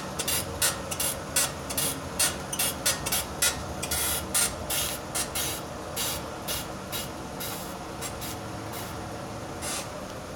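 Renault Fluence's front end creaking in short, sharp strokes a couple of times a second as the steering wheel is turned, thinning out after about seven seconds, over the engine idling. It is a cart-like creak that the owner likens to rubber rubbing on rubber, and he hears it mostly when steering right.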